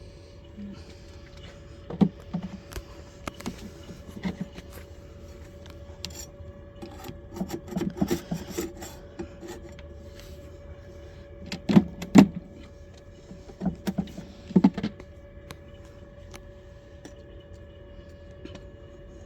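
Wooden knocks, clacks and scraping as frames are pried loose and lifted from a dead beehive's wooden boxes, with a few sharp knocks, two close together about twelve seconds in. A faint steady hum runs underneath.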